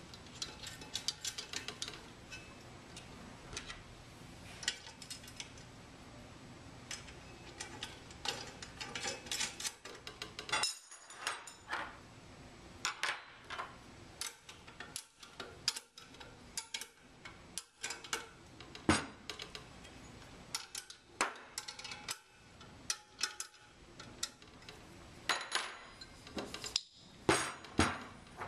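Stainless-steel sampler parts clinking, tapping and knocking against each other and the tabletop as they are handled and fitted together, with small metallic clicks from loose hardware. A few contacts ring briefly.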